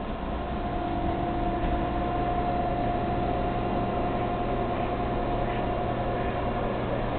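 Steady mechanical hum with a constant whine, from a reef aquarium's pumps and equipment. A deeper hum joins about a second in.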